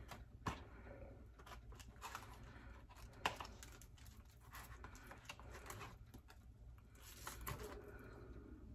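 Faint handling sounds of raw hamburger pieces being laid by hand on a metal sheet pan of cut vegetables: soft rustles and light clicks, with a sharper tap about half a second in and another a little after three seconds.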